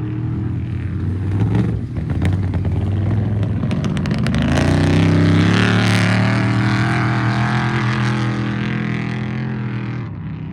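Off-road race truck engine running hard at steady revs. A string of sharp cracks comes about two to four seconds in, then a rushing hiss builds to its loudest midway and fades near the end.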